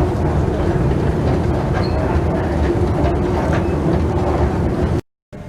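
Loud, steady rumbling noise that cuts off abruptly about five seconds in.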